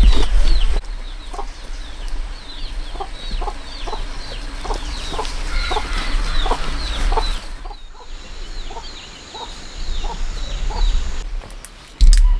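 Chickens clucking, with a long run of short, high, falling peeps about twice a second that thin out near the end.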